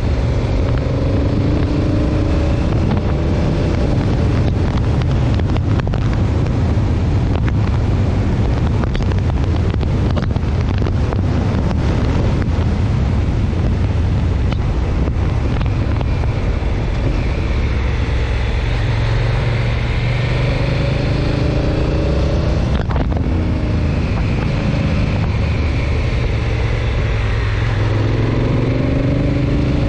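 Motorcycle engine running under way, with heavy wind noise on the handlebar-mounted microphone. The engine note rises and falls with the throttle several times: near the start, again about two-thirds through, and near the end.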